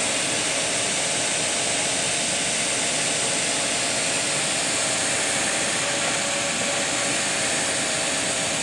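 Flatbed UV inkjet printer running while it prints: a steady, even hiss of its fans and moving print carriage, with a faint hum underneath.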